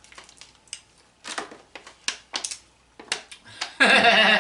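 Eating a seafood boil: scattered wet mouth smacks and sharp clicks of chewing and handling shellfish. Near the end, a brief loud burst of a person's voice.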